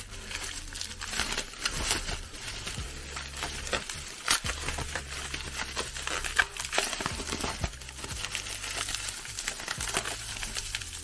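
Bubble wrap and plastic packaging being handled and pulled open by hand, a continuous run of crackles and rustles.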